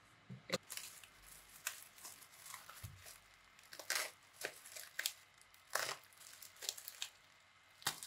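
Plastic bubble wrap crinkling and rustling as it is handled and pulled open, starting about half a second in, uneven and stop-start, with a few sharper crackles.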